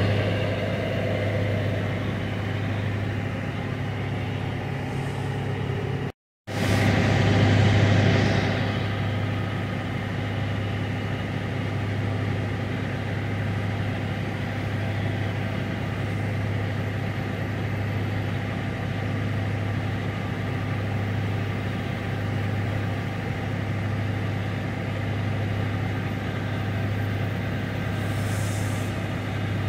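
Semi truck's engine idling with a steady low drone, heard from inside the cab. The sound cuts out completely for a moment about six seconds in.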